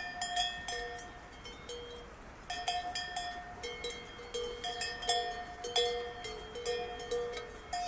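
Several cowbells of different pitch on grazing cattle, clanking at irregular times. Each strike rings on at a steady pitch, with a short lull about two seconds in.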